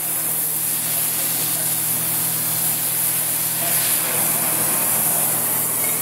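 Gas welding torch flame hissing steadily, with a steady low hum underneath.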